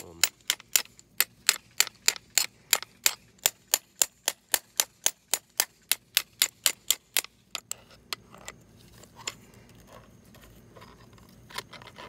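Rapid, even metal tapping, about four strikes a second, on a tool gripping the arm of a seized refrigerator ice-dispenser auger motor to break it free of rust and frozen grease. The tapping stops about seven seconds in, leaving a few lighter clicks and rattles.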